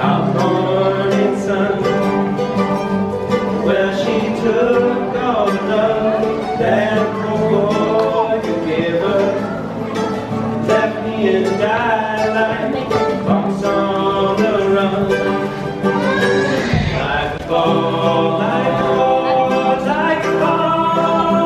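Live bluegrass on acoustic guitar and mandolin, with two men singing.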